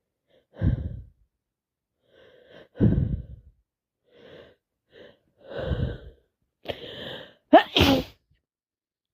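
A person sneezing over and over, wet snotty sneezes with quick breaths between them; the loudest sneeze, voiced, comes near the end.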